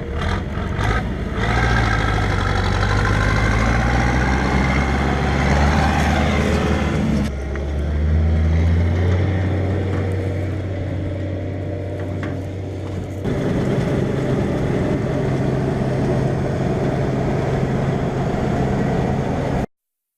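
Diesel engine of harvest machinery (tractor or combine harvester) running under load. The engine note rises about six to seven seconds in, the sound shifts abruptly twice, and it cuts off suddenly near the end.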